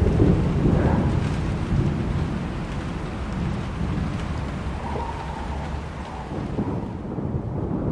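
Thunderstorm: a low rolling rumble of thunder, loudest at the start and dying away over several seconds, over steady rain.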